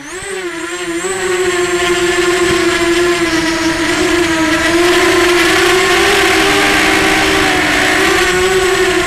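Scorpion M-2204-2300KV brushless motors and propellers of a Robocat 280 FPV quadcopter whining in flight, the pitch wavering up and down with throttle changes. It fades in over the first second or so, then stays loud.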